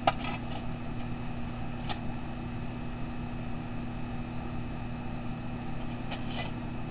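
A few light metal clinks from a lid lifter turning the coal-covered lid of a cast-iron Dutch oven: a cluster at the start, one about two seconds in, and a cluster near the end, over a steady low hum.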